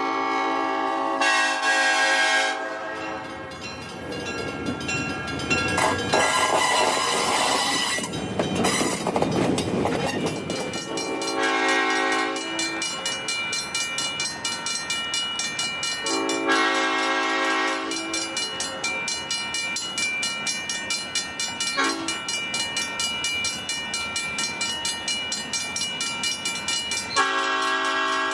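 Horn of Southern Pacific E9 locomotive 6051 sounding a multi-note chord in four blasts: a long one at the start, two shorter ones about halfway through, and another near the end. Between the blasts the train rolls by with a loud rush of wheel and rail noise, then a steady rhythmic clickety-clack of wheels over rail joints.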